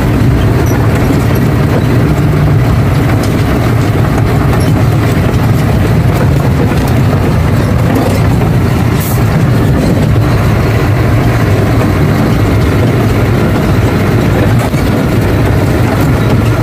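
Diesel engine and running noise of an Ashok Leyland truck under way, heard from inside the cab: a steady, loud drone that keeps an even level throughout.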